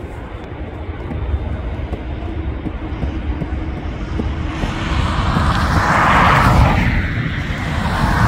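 A passing airliner's engines: a low rumble that grows louder through the second half, swelling into two waves of roar.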